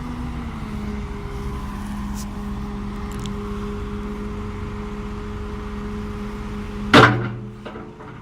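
Liebherr R914 crawler excavator's diesel engine idling steadily, its pitch dipping slightly about half a second in. Near the end a single loud bang, like a door or panel slamming shut, after which the engine sounds much quieter.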